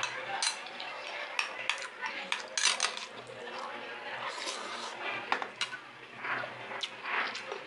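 A metal spoon clinking and scraping against a small glass bowl as soup and rice are scooped up, with close-up slurping and chewing of the food.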